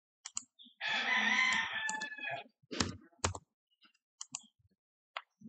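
A rooster crowing once in the background for about a second and a half, starting about a second in, followed by a few sharp computer mouse clicks.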